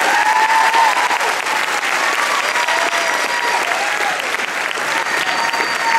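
Theatre audience applauding steadily, with a few cheering voices whooping over the clapping.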